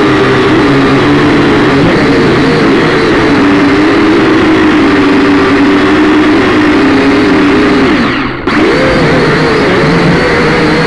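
Syma X5C-1 quadcopter's four small brushed motors and propellers whining loudly, heard close up from the drone's own camera, the pitch wavering as the throttle is worked. About eight seconds in the pitch and level sag briefly, then jump back up.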